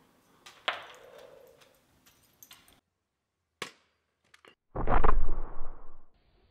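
A sharp hit, a brief crack, then a loud blast with a fading rumble about five seconds in, like gunfire or an explosion in a destruction clip.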